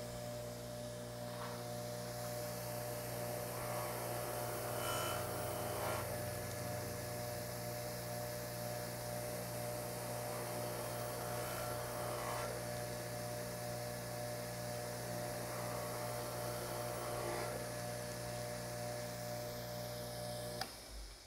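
Harbor Freight bench-top buffer running with a steady motor hum. A few times the abrasive scuff-pad wheel scuffs against a urethane screwdriver handle, trimming dried acrylic paint off its surface. The motor stops near the end.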